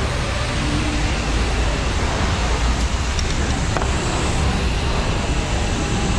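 Steady rushing noise with a deep low rumble from a self-serve car wash bay's high-pressure water equipment, with a faint click or two.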